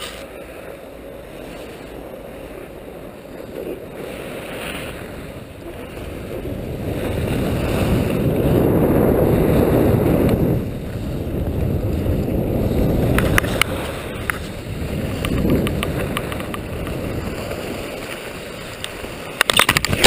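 Wind rushing over an action camera's microphone while skis slide and scrape on snow during a downhill run, swelling to its loudest about halfway through. Near the end, a rapid flurry of knocks and scrapes as the camera ends up in the snow.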